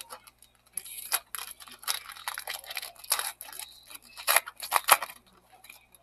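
Foil wrapper of a baseball card pack being torn open and crinkled by hand, an irregular run of crackling and rustling, loudest near the end as the cards are pulled out.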